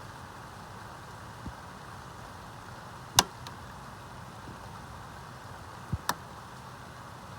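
Steady heavy rain, broken by a few sharp knocks: a faint one about one and a half seconds in, a loud one about three seconds in, and two close together near six seconds.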